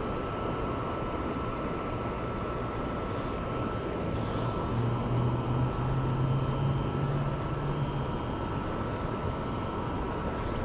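Steady rush of river water, with a low hum that swells for a few seconds in the middle and fades again.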